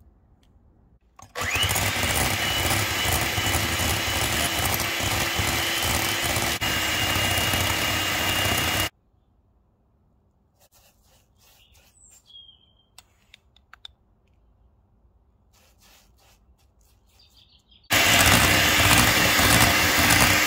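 Electric hand mixer's beaters whisking egg yolks in a glass bowl, a steady motor whine over the whirr. It starts about a second in, runs for about seven and a half seconds and cuts off, then starts again near the end to beat the yolks with sugar until incorporated.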